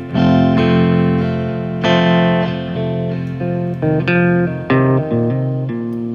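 Guitar music: chords struck and left to ring, with single picked notes in between. Fresh chords come in at the start, about two seconds in, and just before the five-second mark.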